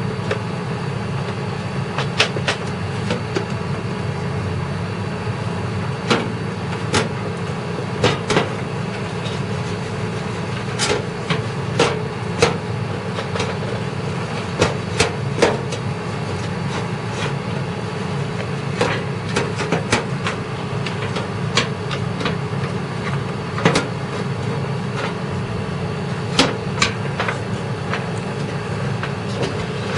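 Scattered sharp clicks and knocks of computer parts and hardware being handled, over a steady low hum.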